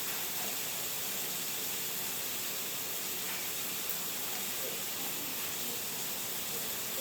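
Steady, even hiss of background noise with no distinct event, apart from one faint tick about four seconds in.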